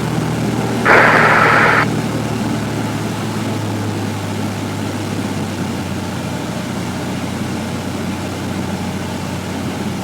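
Cockpit sound of a Cessna 172F's six-cylinder Continental O-300 engine and propeller running steadily at reduced power, easing slightly as the plane is slowed for a power-on stall. About a second in, a loud hiss lasts for about a second.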